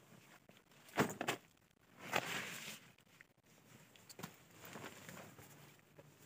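Handling noise of a backpack being opened and a jacket pulled out and shaken open: a few sharp clicks about a second in, then a louder fabric rustle around two seconds in, and softer rustling after.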